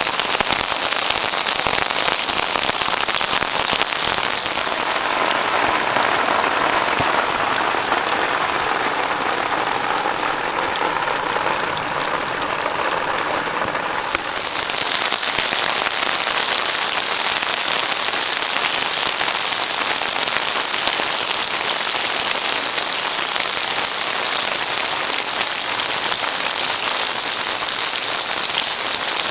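Heavy monsoon rain pouring onto a flat concrete rooftop, a dense steady hiss. For several seconds in the middle the sound turns duller and lower before the full hiss returns.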